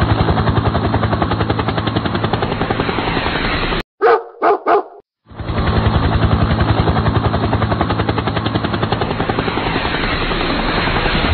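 A fast, even, pulsing rattle that stops abruptly about four seconds in. Three short bark-like calls follow, then the rattle starts again and runs on.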